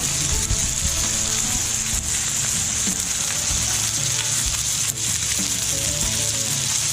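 Steady sizzling and crackling from the barbecue, with a couple of sharper crackles; soft background music runs underneath.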